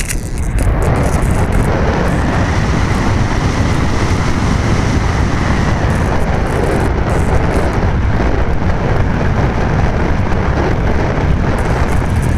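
Wind noise from air rushing over the microphone of a small keychain camera mounted on a Dream-flight Alula glider in flight: a loud, steady rush, heaviest in the low end.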